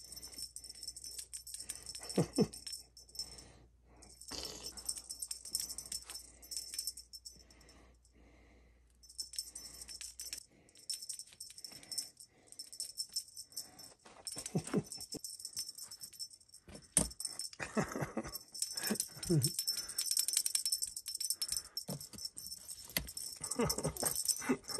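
A small jingle bell rattling and jingling in irregular bursts, with brief pauses, as a cat plays with a belled toy. A few short voice sounds come in between.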